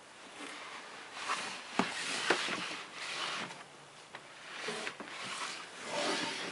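A large cardboard model-kit box being handled: repeated rubbing and sliding swishes, with a few sharp knocks about two seconds in.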